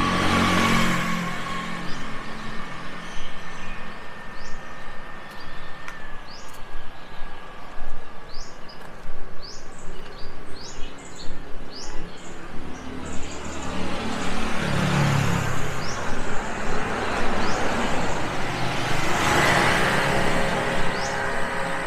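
Street ambience: motor vehicles passing, the loudest a rush near the start and another near the end, while small birds chirp repeatedly through the middle.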